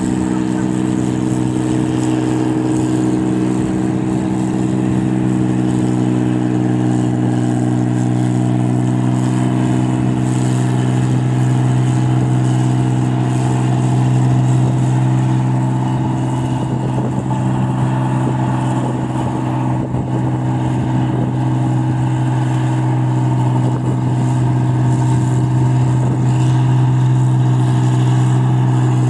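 New Holland 8060 combine harvester's diesel engine running steadily under load with a low, even exhaust note as the machine harvests rice.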